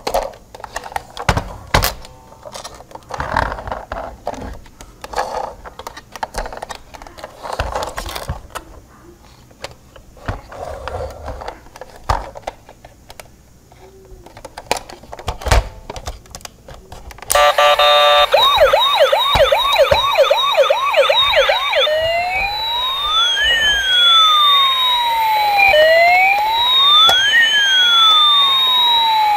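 A plastic toy police van is handled, with clicks and knocks from its doors and parts. About seventeen seconds in, its electronic siren comes on loud: first a fast warbling yelp for a few seconds, then a slow wail that rises and falls.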